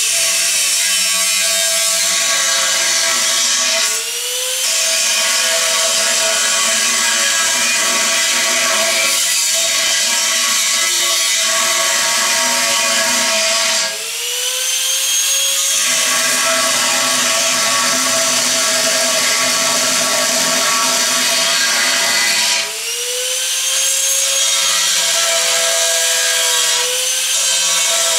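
Angle grinder with a cut-off disc cutting through the steel wall of a gas tank, a loud continuous grinding shriek. A few times the sound dips briefly and the motor's pitch rises and then sinks back as the disc comes off the cut and bites again.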